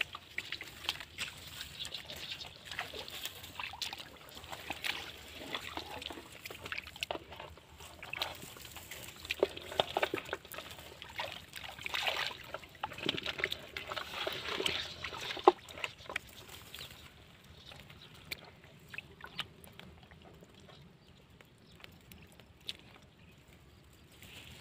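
Water sloshing and splashing in short, irregular bursts, dying down to scattered small drips after about sixteen seconds.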